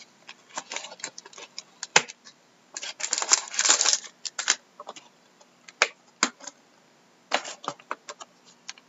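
A cardboard trading-card hobby box and its foil-wrapped card packs being handled: scattered clicks and snaps as the insert's edges are popped out, with a burst of wrapper crinkling about three seconds in as a pack is lifted out.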